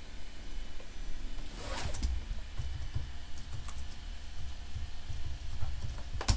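Scattered computer keyboard taps over a steady low rumble, with a brief rustle about two seconds in and a sharper click near the end.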